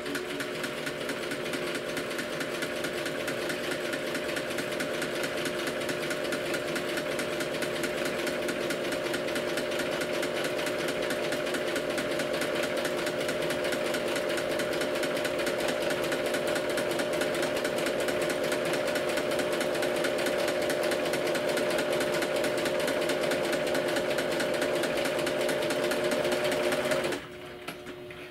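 Household electric sewing machine running steadily at speed, zigzag-stitching the folded edge of thin fabric: a rapid, even clatter of needle strokes over a motor hum. It stops abruptly about a second before the end.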